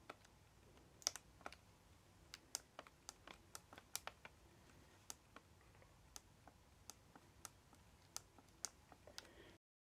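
Faint, irregular small plastic clicks, one or two a second, as the jog dial and buttons of a Sony MZ-N707 MiniDisc Walkman are pressed over and over to try to get the intermittently faulty player to switch on. The clicks stop abruptly near the end.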